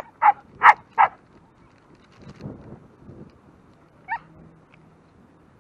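A husky barking in short, sharp calls: four quick barks in the first second, then one more about four seconds in. The dog is excited about a game of ball.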